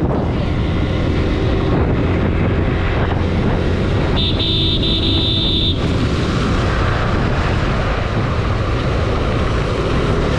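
Steady wind and road noise of a motorcycle ride in traffic, with a vehicle horn honking once for about a second and a half about four seconds in.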